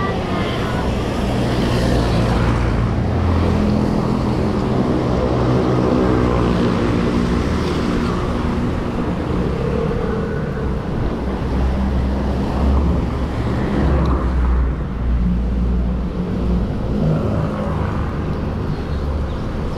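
Wind rushing over an action camera's microphone on a moving bicycle, with motor traffic passing.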